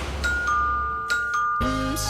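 Background music from a drama score: a few ringing mallet or chime notes held over a low bass, then a fuller music passage with a melody coming in near the end.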